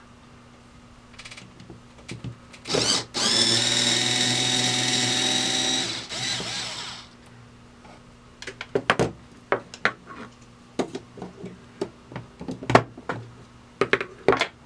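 Handheld power drill/driver running: a brief burst, then a steady run of about three seconds that trails off, backing out the fastener that holds the star wheel on a vintage Beaver vending mechanism. After it come a series of sharp clicks and knocks of metal parts being handled and set down.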